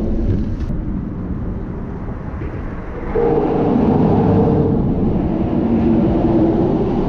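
Steady rumble of road traffic on the bridge overhead, growing louder about three seconds in as a vehicle crosses and adds a steady hum.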